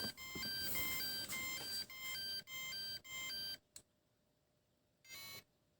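Remote control for a radio-controlled boat sounding its low-battery alarm: a rapid, repeating multi-tone beeping that warns its 12-volt power battery has sagged below 9 volts under load. The beeping stops abruptly a little past halfway, followed by a click and one short beep near the end.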